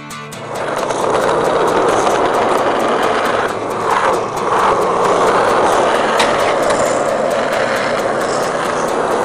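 Skateboard wheels rolling over smooth asphalt, a loud steady rumble that builds up in the first half second and briefly drops away about four seconds in.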